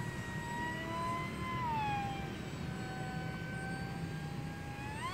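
RC model flying wing's motor and propeller whining high overhead; the pitch falls about two seconds in, holds lower, then starts climbing steeply near the end.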